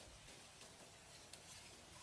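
Near silence: a faint even hiss with a couple of soft ticks.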